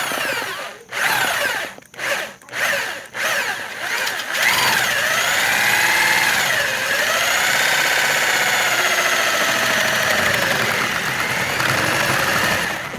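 Electric drill motor triggered in several short bursts, then held running for about eight seconds, its pitch dipping and rising with the speed, before it stops abruptly.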